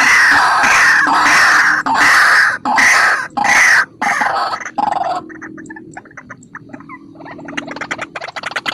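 White-breasted waterhen calling: a string of loud, harsh repeated notes less than a second apart, which give way about five seconds in to quieter rapid ticking notes and then a fast pulsing series near the end.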